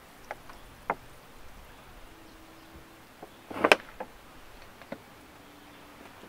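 A few scattered light clicks and knocks, the loudest a short cluster of knocks about three and a half seconds in.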